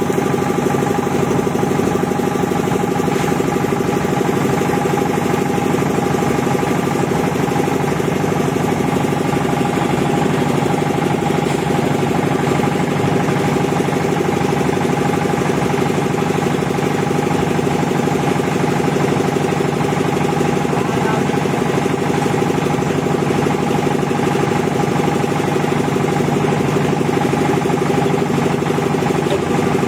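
Engine of a portable concrete mixer running steadily while the drum turns a batch of concrete.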